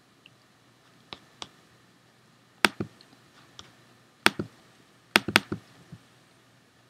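Computer mouse clicks: about ten short, sharp clicks in small groups, several in quick pairs like double-clicks, as image files are closed and opened.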